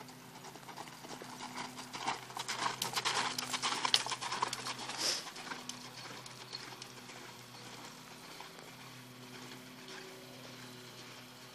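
Hoofbeats of a Paint Horse mare loping on arena sand, a quick run of dull thuds that grows loud a couple of seconds in as she passes close and then fades as she moves away. A steady low hum lies underneath.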